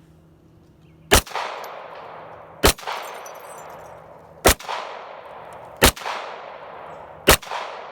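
Five pistol shots from a CZ Tactical Sport Orange 9mm, starting about a second in and fired one at a time roughly a second and a half apart. Each shot is followed by a softer second report and a fading echo.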